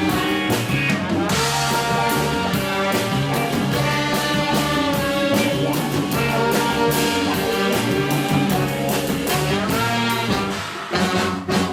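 Live band playing an Ethiopian jazz tune, horns carrying the melody over bass and drums with regular strokes; the music thins out near the end.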